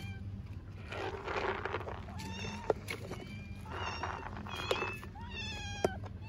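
A young tabby kitten meowing repeatedly from hunger: several short, high calls, the last one falling in pitch, with breathy, hoarse stretches between them. A steady low hum runs underneath.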